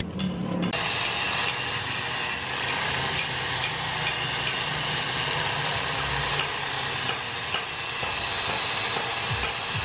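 A handheld electric power tool working metal runs steadily, with a high whine that wavers slightly in pitch. It cuts in abruptly under a second in.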